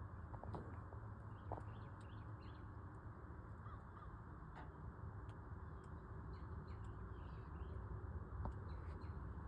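Faint bird chirps and calls scattered over a steady low rumble, with a few small clicks.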